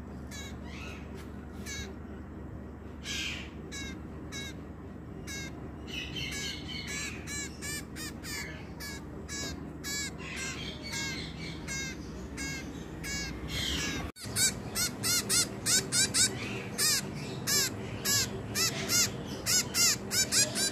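Baby bird begging with short, high chirps over and over, a sign that it is hungry and wants feeding. About two-thirds of the way through there is an abrupt break, after which the chirps are louder and come about two a second.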